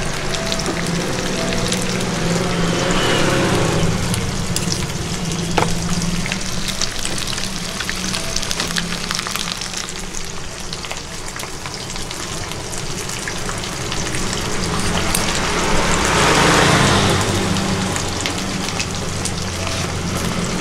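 Food frying in hot oil: a steady crackling sizzle that swells louder about sixteen seconds in.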